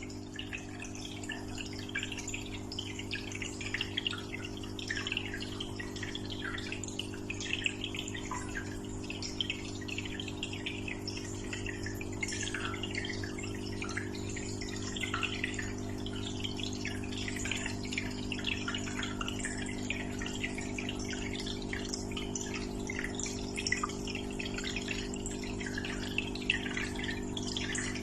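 Aquarium water trickling and splashing continuously in many small drips, over a steady low hum from the tank's pump.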